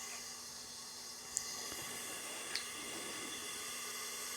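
Faint steady hiss with two light clicks, about a second apart, from small parts being handled on the engine's cylinder head.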